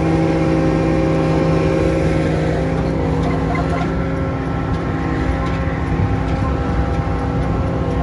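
Large diesel engine running steadily at constant speed, with a low rumble under a steady hum.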